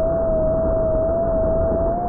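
The 70 mm electric ducted fan of an RC jet running at high throttle in flight: a loud, steady high whine that dips slightly in pitch now and then, over a low rush of wind, picked up by a camera mounted on the jet.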